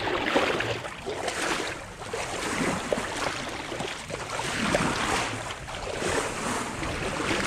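Sea water rushing and splashing along a sailboat's bow as the hull moves through the water, swelling and easing every second or so.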